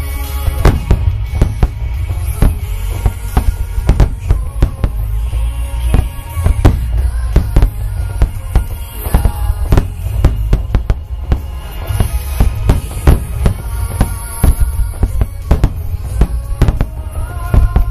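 A dense barrage of aerial firework shells bursting in quick, irregular succession: sharp bangs one after another over a continuous deep rumble of booms.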